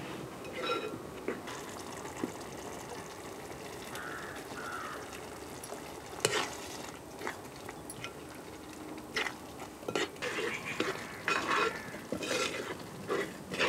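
A metal spatula stirring and scraping in a metal pot of sizzling masala, over a steady frying sizzle. The spatula knocks and scrapes against the pot many times, more often in the second half.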